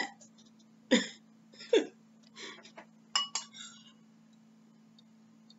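A spoon clinking and scraping against a ceramic soup bowl as it stirs and scoops chicken noodle soup, in a handful of short, uneven clinks over the first four seconds.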